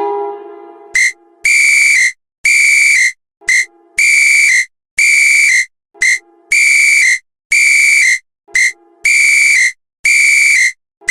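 A shrill whistle tone blowing over and over in a short–long–long rhythm, one short blast followed by two longer ones, repeating about every two and a half seconds. A lower tone falling in pitch fades out during the first second.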